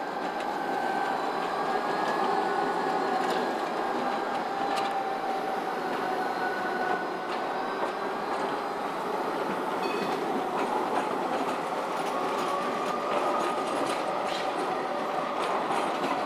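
Strasbourg CTS low-floor tram rolling slowly past, its steady wheel-and-rail noise overlaid by several whining tones that waver gently in pitch.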